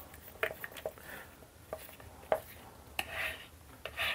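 A stir stick working epoxy resin in a plastic mixing cup, with irregular light taps and short scrapes against the cup's sides.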